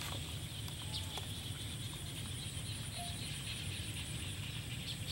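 Outdoor field ambience: a steady high insect buzz, with a few brief chirping bird calls over it.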